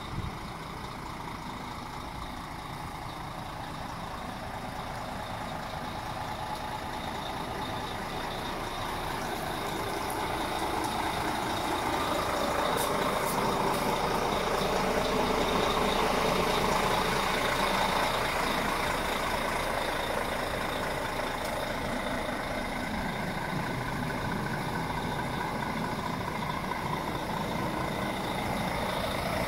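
DAF CF 85.380 truck's straight-six diesel engine idling steadily, growing louder about halfway through and then easing slightly.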